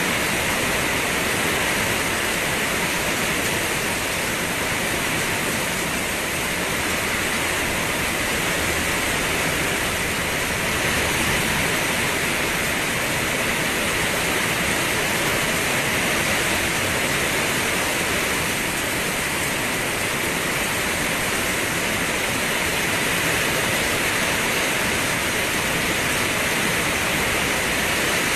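Steady, dense rain hiss, even and unbroken, with no separate drops or thunder standing out.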